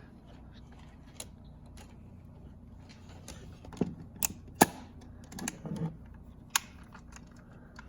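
Scattered small clicks and taps of plastic parts being handled, from working the Corning UniCam installation tool and SC connector by hand: a few sharp single clicks several seconds apart with softer knocks between.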